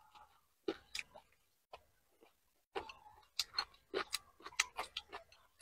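Close-up wet chewing and lip-smacking of a person eating spicy sauced chicken feet: clusters of sticky clicks and smacks, with a pause of about a second and a half in the middle.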